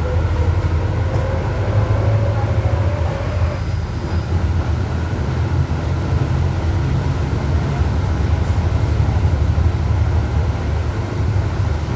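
Volksbus 17.230 OD bus under way at low revs: the diesel engine's steady low drone with the gearbox growl running over it as a whine, which rises slowly in pitch over the first few seconds.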